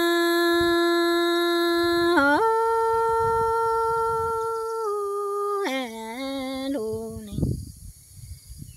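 A woman singing Hmong kwv txhiaj (traditional sung poetry) in long held notes. The pitch steps up about two seconds in, then falls and breaks into short wavering turns, and the voice stops about seven seconds in.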